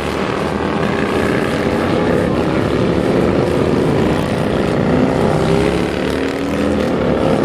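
A procession of motorcycles and trikes riding past, several engines running at once. Their overlapping engine notes rise and fall in pitch as the bikes go by.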